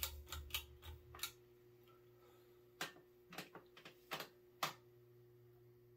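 Irregular sharp clicks and ticks as a 1999 King of Fans Explorer II ceiling fan is switched on, over a faint steady hum. The clicks come in two clusters, one in the first second or so and another between about three and five seconds in.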